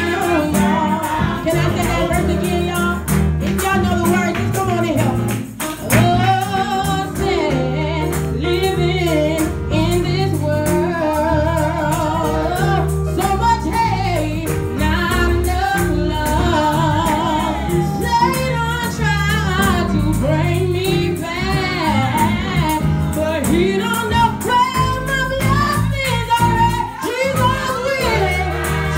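A women's gospel group singing, a lead voice at the front with the others behind, over a steady low instrumental backing.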